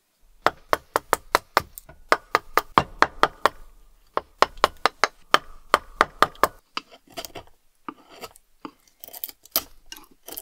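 A fast, even run of sharp taps, about six a second, breaks off briefly before four seconds, resumes, then gives way to slower, irregular knocks.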